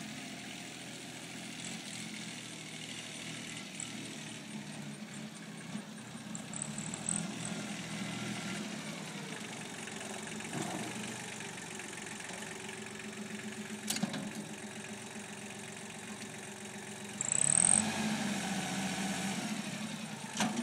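Kubota 19 hp compact diesel tractor engine running steadily as the tractor drives. There is a single sharp click about two-thirds of the way through, and the engine gets louder with a brief high whine about three-quarters of the way in.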